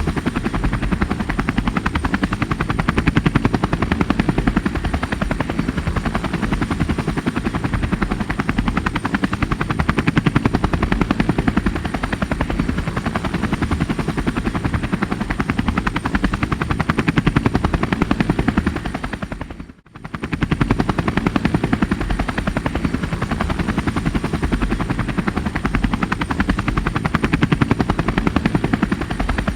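Rescue helicopter running steadily with a fast, continuous rotor chop and engine noise. About two-thirds of the way through, the sound briefly fades almost to nothing and comes straight back.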